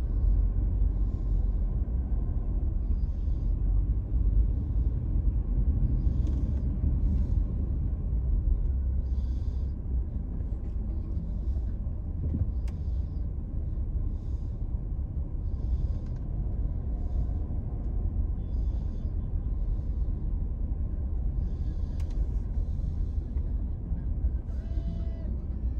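Steady low rumble of a car's engine and road noise heard from inside the cabin while creeping in slow traffic.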